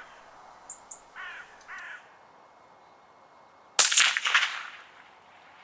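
A hooded crow caws twice, briefly, about a second in. Then a single sharp, loud shot from a .22 Magnum (.22 WMR) Ruger 77/22 rifle comes near four seconds in, with an echo that dies away over about a second.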